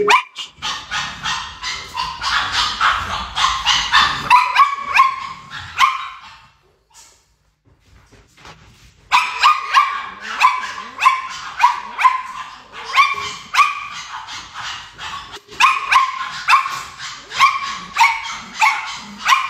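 A dog whining in short, high, repeated cries, about two a second, breaking off for a couple of seconds near the middle.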